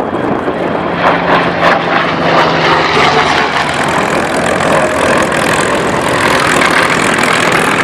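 Hawker Sea Fury's big radial engine and propeller running loud and steady as the fighter flies past. The sound grows brighter about halfway through.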